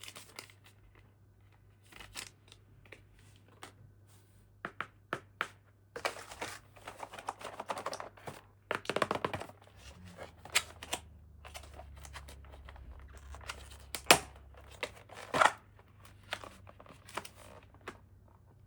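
Toy packaging being unwrapped and handled: crinkling and tearing with scattered light clicks and taps, and two sharper knocks in the later part.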